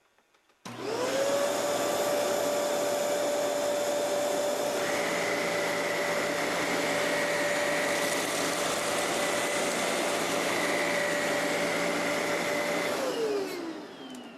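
Kenmore Elite 31150 upright vacuum cleaner switched on, its motor spinning up to a steady high whine, with a second, higher whine joining about five seconds in. Near the end it is switched off and the motor winds down, the pitch falling.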